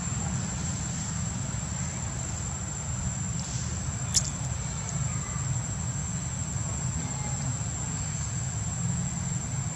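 Outdoor ambience: a steady low rumble with a thin, unbroken high-pitched insect drone over it, and a single sharp click about four seconds in.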